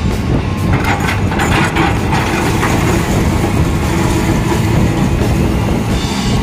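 Hyundai crawler excavator's diesel engine running steadily under load as its bucket drags through crushed stone. The rocks rattle and scrape, loudest from about one to three seconds in.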